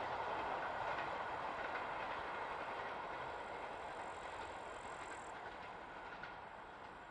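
Train moving away after passing by, its running noise fading steadily into the distance. A faint high chirping of crickets comes through for a moment midway.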